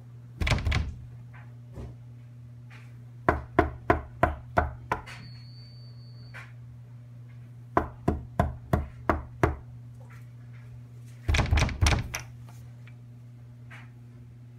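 Knuckles knocking on a wooden panelled door in bursts: a quick flurry, then two runs of about six raps at roughly four a second, then another quick flurry. A steady low hum sits underneath, and a brief high thin tone sounds about five seconds in.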